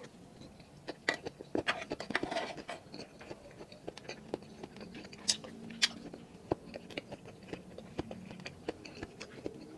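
A man chewing a mouthful of grilled balut (duck embryo) close to the microphone: irregular soft mouth clicks and smacks, with a couple of sharper clicks about halfway through.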